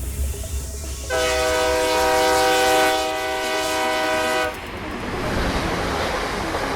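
Train horn sounding one long, steady blast of about three and a half seconds over a low rumble. A rushing noise follows once the horn stops.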